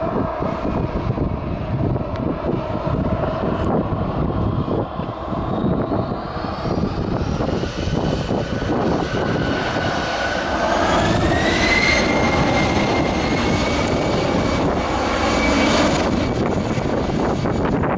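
Airliner engines spooling up: a whine of several tones rises in pitch over about six seconds, then holds steady and louder, under a gusty rumble of wind on the microphone.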